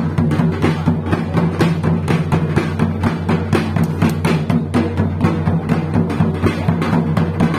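Drums beating in a fast, even rhythm, with a steady low pitched tone held underneath.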